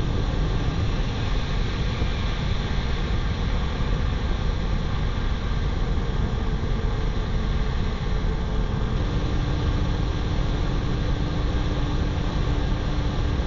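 Steady, unbroken roar of F/A-18 jet engines mixed with rushing air noise on an externally mounted camera in close-formation flight, with a faint steady hum running through it.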